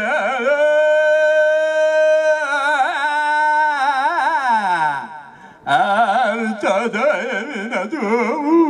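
A male olonkho singer singing unaccompanied in Yakut. He holds a long steady note, then wavers and slides down, breaking off about five seconds in. He then starts a new phrase with rapid quavering ornaments.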